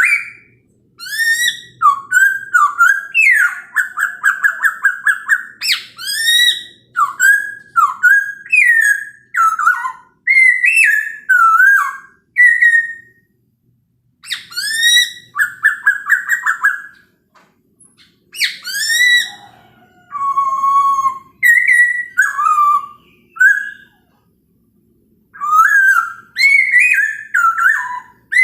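Poksay Hongkong (a laughingthrush) singing loudly: phrases of clear, slurred whistles that swoop up and down, some notes repeated quickly, with short pauses between phrases.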